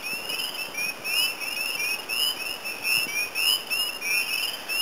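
A chorus of spring peepers: many short, rising, whistled peeps overlapping, several each second.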